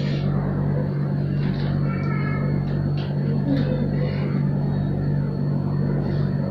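A steady low hum under a continuous noisy rumble, with a few faint voice-like sounds in the background.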